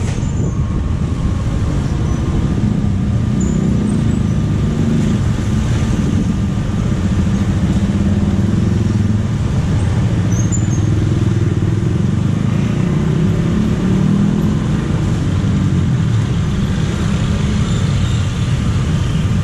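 Steady, loud road traffic, mostly motorcycles with some cars, driving across a railway level crossing while the barrier is up.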